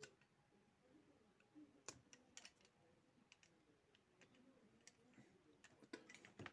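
Near silence broken by a few faint, scattered clicks and ticks from small parts being handled, the slightly louder ones about two seconds in and near the end.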